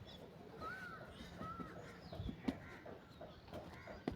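A wild bird calling twice, each a short note that rises and falls, faint against the outdoor background, with a couple of light knocks near the middle and near the end.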